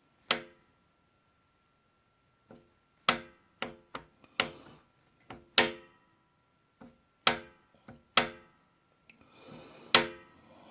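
Ski-Doo MXZ 600 two-stroke piston knocking against its cylinder as it is rocked, about a dozen irregular sharp metallic clicks that each ring briefly. The looseness is the piston-to-cylinder clearance behind piston slap.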